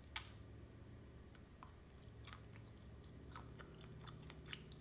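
Faint chewing of a boiled, peeled jackfruit seed: a sharp mouth click right at the start, then soft chewing with small scattered clicks.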